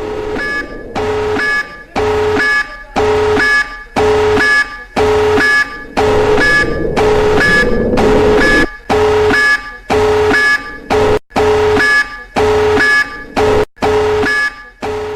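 Emergency alert alarm tone beeping about twice a second, each beep a steady chord of a low and a higher tone; it fades in at the start.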